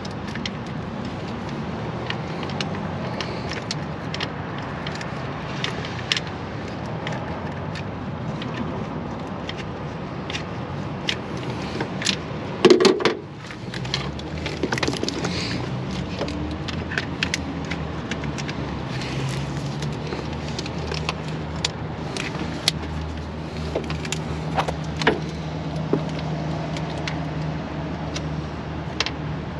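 Car engine idling steadily, with scattered sharp clicks and light knocks over it and a louder clatter about 13 seconds in.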